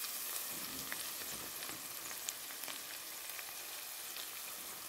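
Chopped onion and tomato sizzling in oil in a frying pan, with scattered small crackles.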